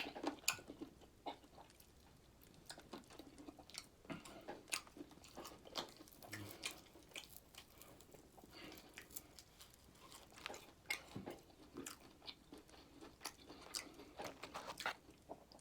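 A person chewing and biting into crunchy fried food close to the microphone: quiet, irregular crunches and mouth clicks.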